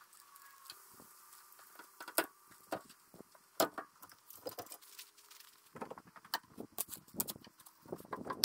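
Building work sounds from a man at a window opening on a ladder: scattered sharp clicks and knocks, with a busier run of thumps and rattles over the last couple of seconds.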